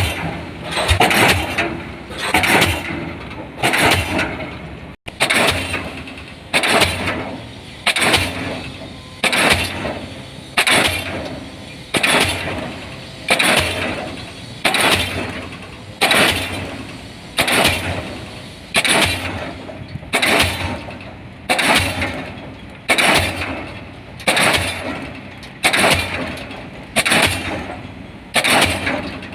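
DD 55 diesel pile hammer driving a 500 mm pile, firing in a steady rhythm of about one blow a second. Each blow is a sharp bang that rings and dies away before the next.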